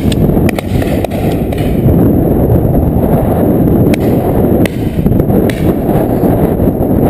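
Wind buffeting the microphone with a loud, steady low rumble, broken by several short sharp cracks.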